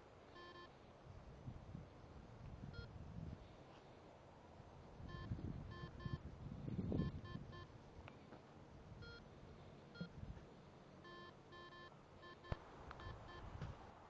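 Garrett Ace 250 metal detector giving short, repeated electronic beeps as its coil is swept over the ground, sounding off on targets. Low rustling and thuds of handling, loudest in the middle, and a sharp click near the end.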